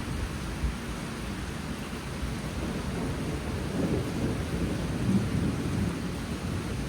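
Steady monsoon rainfall, with a low rumble that swells about halfway through and fades again.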